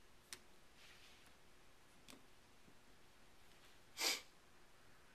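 Faint clicks of a Remington 7600's steel bolt assembly being handled and set on a bench block, then a brief louder clatter about four seconds in.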